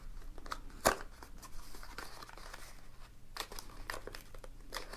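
A small black accessory box being forced open by hand. Its stiff, tight lid makes rubbing and scraping sounds, with a few sharp snaps and clicks; the loudest comes about a second in.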